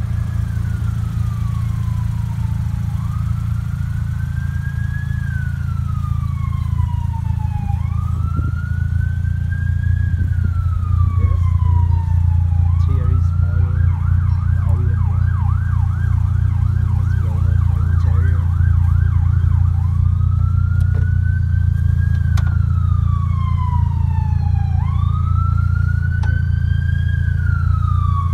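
Emergency-vehicle siren in a slow wail, rising and falling about every four seconds. For about six seconds in the middle it switches to a fast yelp, then goes back to the wail. A steady low drone runs underneath and is the loudest part.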